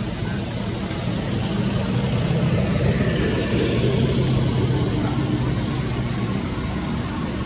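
A motor vehicle's engine running with a steady low hum, growing louder about two seconds in and easing off again toward the end.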